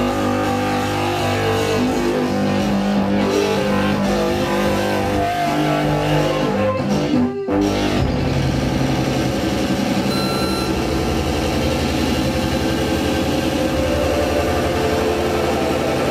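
Live experimental electronic music from a table of electronic gear: held, layered droning tones that cut out briefly about seven seconds in, then return as a denser, low rumbling drone with a fast pulsing texture.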